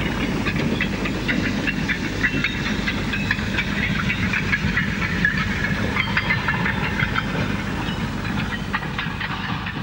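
Beyer-Peacock 10 Class steam tank locomotive working a train of timber coal hoppers: a steady hiss of steam over a low rumble, with many short metallic clicks and squeals from the running gear and wagons.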